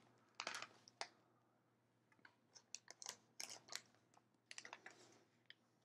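Faint crinkling and clicking of plastic component bags being handled, one of them full of small loose LEDs, in short scattered bursts.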